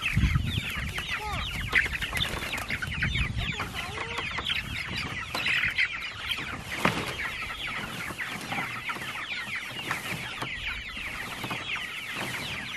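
A flock of chickens calling continuously, many birds at once in overlapping short, high, falling chirps. A low rumble runs under them for the first few seconds.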